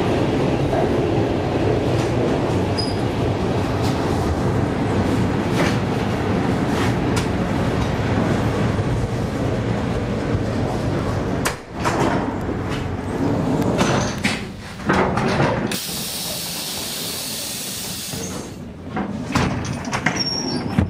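ED4M electric train running on the rails, a steady rumble heard from inside the vestibule as it runs along a station platform. About halfway through, the rumble drops away into a few knocks and clunks. Later a loud hiss of compressed air lasts about three seconds, as the pneumatic doors work.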